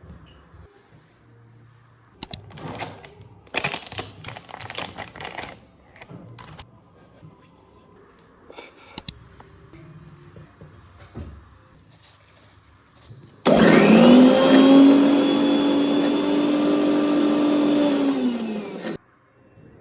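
Light kitchen knocks and clatter, then an electric blender motor switches on about two-thirds of the way through. It spins up quickly, runs loud and steady for about five seconds, and cuts off near the end.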